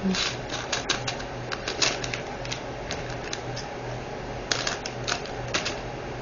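Irregular light clicks and taps of small plastic diamond-drill containers and packets being handled. The clicks come thick for the first two seconds or so, thin out, then come in another cluster about four and a half seconds in.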